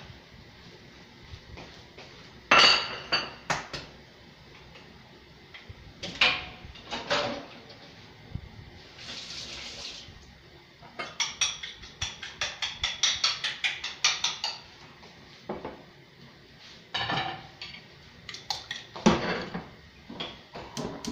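Kitchenware clattering: scattered knocks and clanks of dishes and utensils, with a run of quick, even clinks lasting a few seconds about halfway through and a short hiss just before it.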